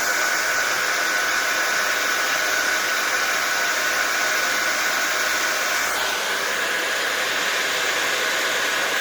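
Handheld blow dryer fitted with a nozzle attachment, running steadily and blowing wet acrylic pour paint across a wood round: a steady rush of air with a high whine, its tone shifting slightly about six seconds in.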